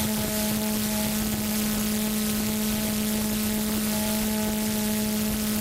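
A steady hum holding one low pitch with fainter higher tones, over a constant hiss.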